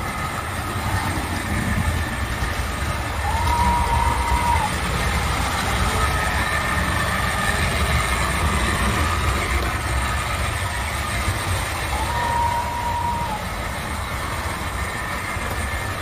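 A train running with a steady low rumble, broken twice by a short high tone that rises, holds for about a second and drops away, roughly every eight to nine seconds.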